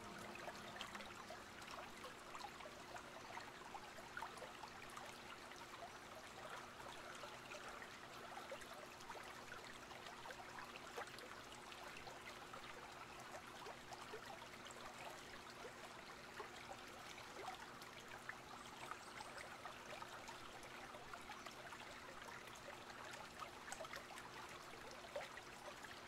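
Faint, steady trickling and lapping of water, with many small ticks and splashes and a faint steady low hum underneath.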